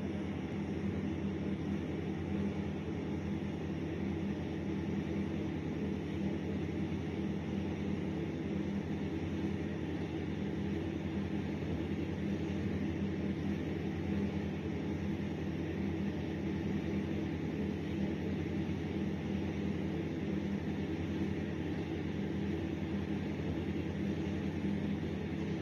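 A steady, unchanging low drone with hiss over it, with no distinct knocks, barks or other events.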